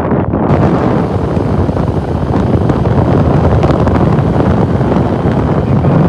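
Heavy wind buffeting the microphone of a rider on the move, with vehicle noise underneath. The rushing gets fuller and stronger about half a second in.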